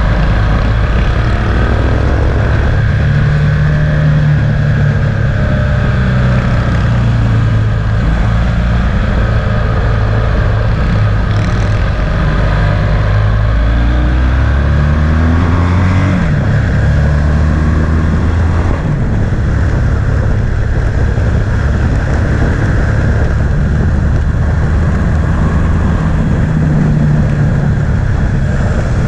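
Motorcycle engine running at road speed, its revs rising and falling through the bends, with a climb in pitch about halfway through, over a steady rush of wind on the microphone.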